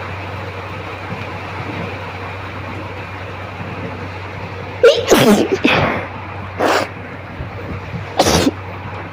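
A woman sneezing: one loud, voiced sneeze about five seconds in, then two shorter sneezes, over a steady background hum. The sneezes are set off by tickling the nose with a cotton bud.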